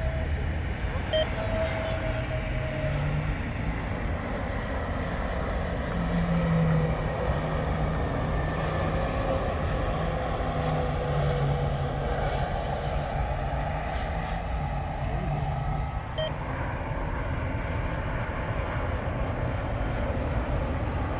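Airbus A320neo's turbofan engines running: a steady jet rumble with a low hum and a whine that slowly falls in pitch. About three quarters of the way through there is a brief dip and a click, and then the same kind of jet noise goes on from another airliner.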